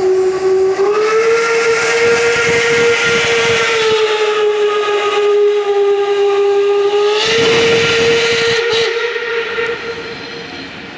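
Steam whistle of a German class 01 steam locomotive blowing one long blast. The pitch steps up about a second in, sags slightly midway, lifts again around seven seconds, and the blast fades out near the end.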